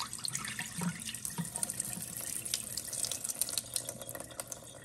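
Dirty water poured from a vacuum mop's wastewater tank, splashing steadily into a kitchen sink and thinning to a narrower stream near the end.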